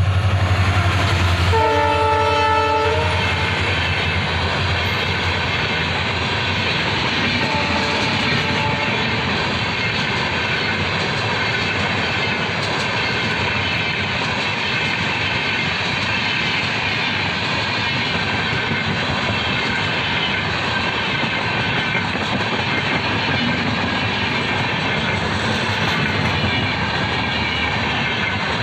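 WDP4B diesel locomotive running past with a deep engine hum. A horn blast of about a second and a half sounds near the start, and a fainter short horn note follows about eight seconds in. After that the passenger coaches roll by at slow speed with a steady rumble and clickety-clack of wheels over rail joints.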